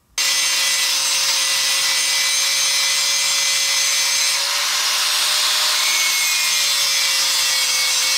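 Angle grinder grinding a flat spot into a 9/16-inch steel rod held in a vise: a steady, loud grinding hiss over the motor's even whine. It starts suddenly just after the beginning and runs without a break.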